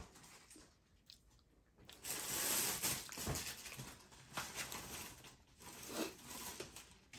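A person biting into and chewing a crisp round biscuit: irregular dry crunches that begin about two seconds in, the loudest bite first.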